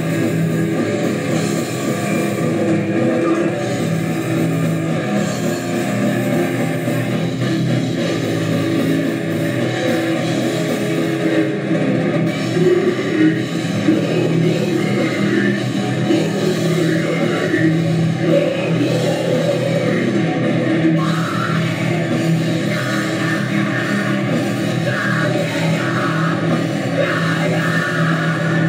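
A heavy metal band playing live: electric guitar, bass guitar and a Pearl drum kit, loud and steady throughout.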